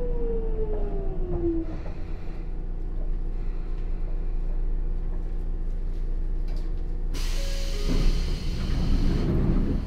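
Hitachi GTO-VVVF inverter of a Sotetsu 8000-series train whining down in pitch as the train brakes, fading out after a couple of seconds and leaving a steady low rumble. About seven seconds in, a sudden loud hiss of compressed air breaks out.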